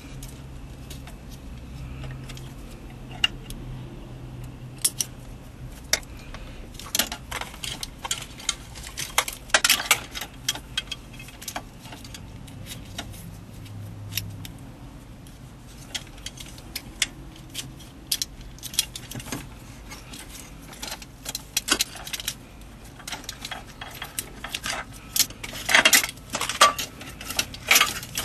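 Scattered small clicks and light metallic-plastic rattling from hands working a car radio's wiring connector, pulling terminal pins out and moving them into an interface harness. The clicks come in clusters, busiest about a third of the way in and near the end.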